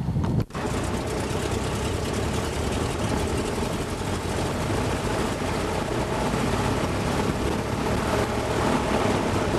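New Standard biplane's engine running steadily, heard from inside the open passenger cockpit as a loud drone mixed with rushing air. It starts abruptly about half a second in.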